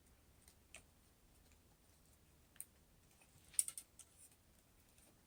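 Faint scattered clicks and light taps of small plastic parts being handled. The loudest is a short cluster of quick clicks about three and a half seconds in.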